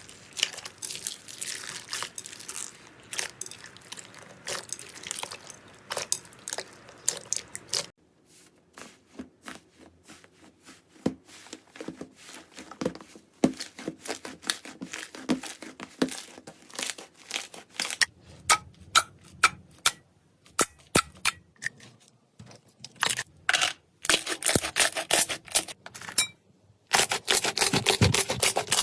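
Slime being squeezed, stretched and pressed by hand, giving irregular crackling, clicking and popping sounds. There are short gaps about eight seconds in and near the end where one clip gives way to the next.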